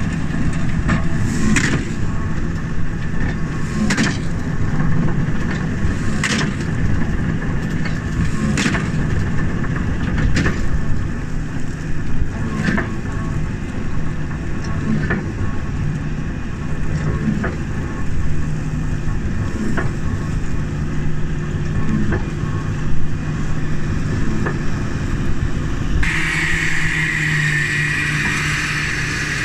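New Holland 4900 large square baler running in straw behind its tractor: a steady mechanical drone with a sharp knock about every two seconds. Near the end the sound changes to a brighter, hissing machine noise.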